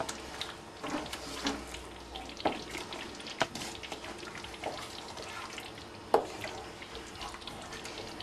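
Wooden spoon stirring sugar into plum purée in a large stainless steel pot: liquid swishing, with irregular knocks and scrapes of the spoon against the pot, a sharper knock about six seconds in.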